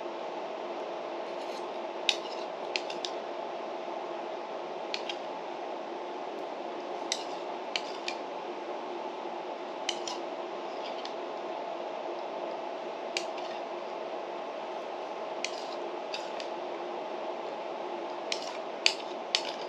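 A metal spoon clicking against a lacquered bowl while yogurt is scooped and eaten: sharp light clicks every second or few, some in quick pairs or threes, over a steady background hum.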